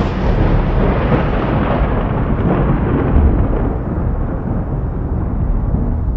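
Thunder: a sudden crack right at the start, then a long rolling rumble that slowly loses its brightness.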